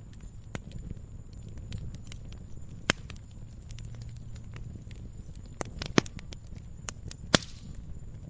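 Wood fire burning with a steady low rumble and scattered crackles and pops of burning firewood, the sharpest snaps at about three, six and seven seconds in.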